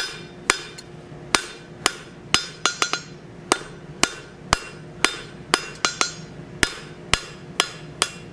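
Hand hammer striking a hot bar on a steel anvil, drawing the metal out between two shoulders: sharp ringing blows about two a second, with a few quicker, lighter strikes in between.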